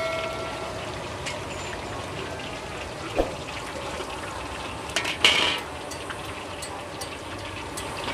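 Hot oil sizzling steadily in a large aluminium wok, with metal spatulas scraping and knocking against the pan, once about 3 seconds in and more loudly a little after 5 seconds.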